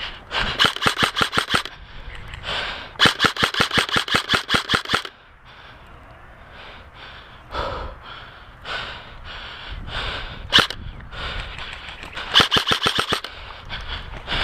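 Airsoft guns firing full-auto bursts, rapid strings of shots at about ten a second. There is a burst near the start, a longer one about three seconds in and another near the end, with scattered single shots between.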